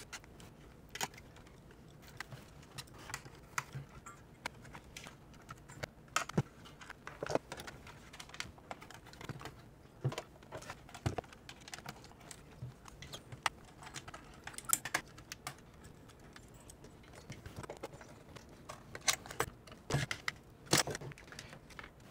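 Irregular light clicks and taps of hands working inside a small metal electronics chassis, with connectors being unplugged and parts unscrewed with a screwdriver.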